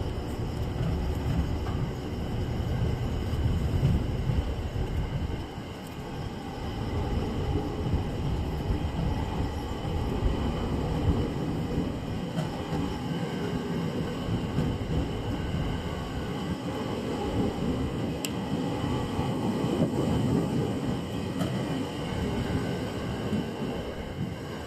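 Delivery train of an EF81 electric locomotive hauling E231 series 800 cars rolling through the station as it pulls away, its wheels giving a steady low rumble on the rails.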